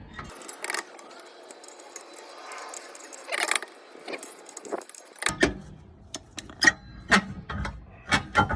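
Light metallic clicking and jingling as a tool turns the parking-brake shoe adjuster wheel behind the rear brake rotor, backing the shoes off. The clicks come thicker and sharper over the last three seconds.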